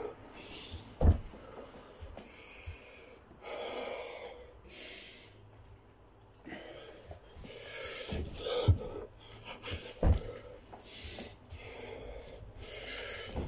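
A man breathing hard and ragged, a loud breath every second or two, out of breath from doing burpees. A few thuds of hands and feet landing on a carpeted floor, the loudest about a second in.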